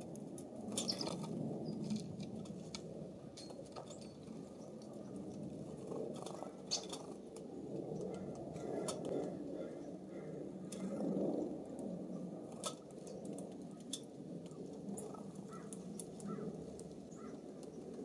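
Breeze rumbling on the microphone, with scattered faint clicks and a few short bird chirps, mostly near the end.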